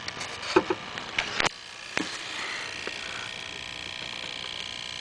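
Handling noise from a handheld camera being swung around: several sharp knocks and rubs in the first second and a half, one more knock about two seconds in, then a steady background hiss.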